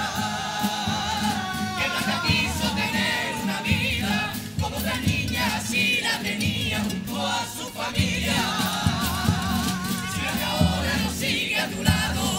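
Cádiz carnival comparsa chorus of young voices singing together, backed by strummed Spanish guitars and a drum beat.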